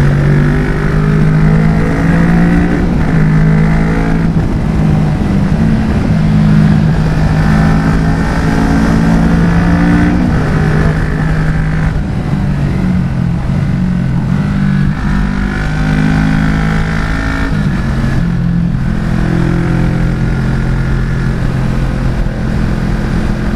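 Kawasaki Vulcan S's parallel-twin engine pulling along the road, its pitch rising and dropping every few seconds with throttle and gear changes, over wind rush on the microphone.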